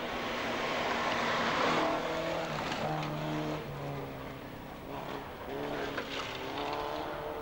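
Rally car engine at high revs on a gravel forest stage, with gravel and tyre noise. The engine note steps in pitch partway through and climbs again near the end.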